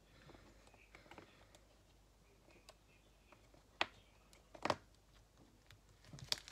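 Faint sticky squishing of PVA glue slime being squeezed and kneaded by hand, with a few sharp clicks, the two clearest a little before four seconds and near five seconds in.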